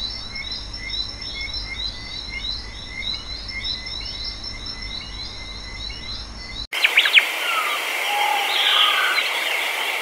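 Forest ambience recording: a dense chorus of short, rapidly repeated chirps over a steady high hum, then an abrupt cut about seven seconds in to a second forest recording with a few sharp clicks and scattered bird calls over a hiss.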